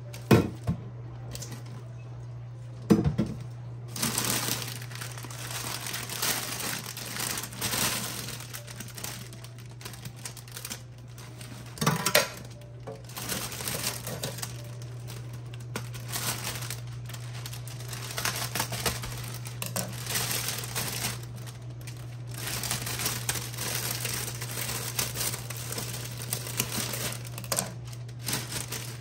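Wrapping crinkling and rustling as it is handled, on and off, with a few sharp knocks, the loudest near the start and about twelve seconds in. A steady low hum runs underneath.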